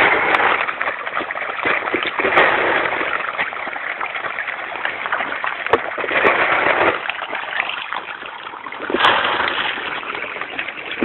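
A mass of catfish splashing and churning at the water's surface, the splashing swelling in surges every few seconds.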